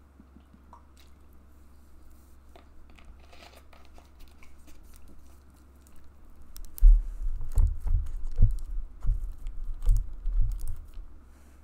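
Handling noise right at the microphone: a plastic water bottle crinkling, with a string of low bumps and clicks as it knocks on the table. It starts about halfway through and stops shortly before the end.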